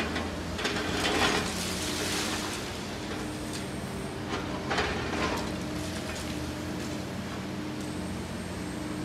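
Liebherr 954C high-reach demolition excavator running steadily while its boom-mounted tool breaks into concrete, with two louder bursts of crunching and falling debris, about a second in and again about five seconds in. A faint low beep repeats about once a second.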